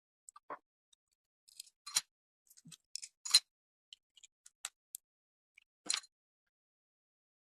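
Slime being mixed and worked with paint: scattered short clicks and pops at irregular intervals, the loudest about three seconds in.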